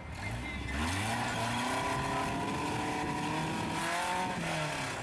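Rock crawler's engine revving up under load as it climbs a steep rock ledge, holding high revs for a few seconds, then dropping back near the end.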